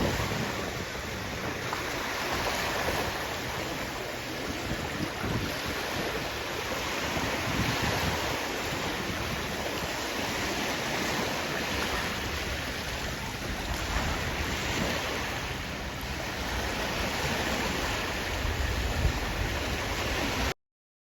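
Sea waves washing onto the shore in a steady surf that swells and eases, with wind buffeting the microphone. The sound cuts off suddenly near the end.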